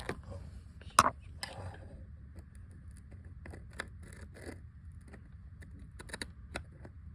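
Handling of a walker's electric height-adjustment mechanism: one sharp click about a second in, then scattered light clicks and scrapes.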